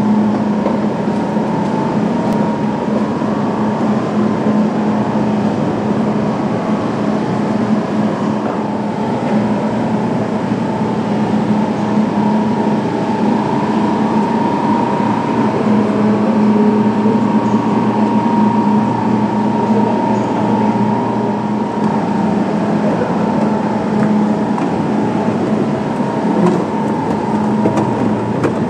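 Steady hum of a standing Eurostar high-speed train's onboard equipment, holding a constant low tone and a higher whine, over the general noise of a busy station platform.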